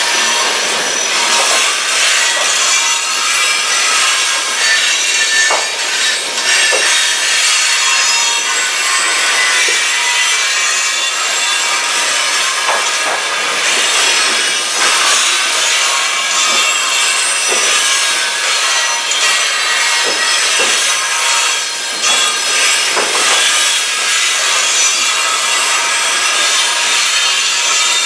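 CN train 511E rolling past with its steel wheels grinding and squealing on the rails: a loud, continuous metallic rubbing with thin high squeals running through it and an occasional knock.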